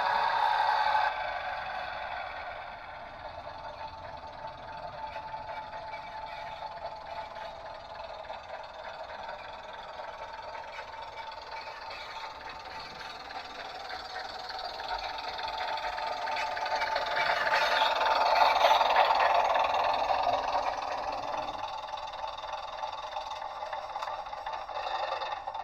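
Bachmann OO-scale Class 101 DMU model's sound decoder playing the diesel railcar's engine running sound through the model's small speaker. The sound is thin, with little bass. It grows louder about two-thirds of the way through, then eases, and cuts off sharply at the very end.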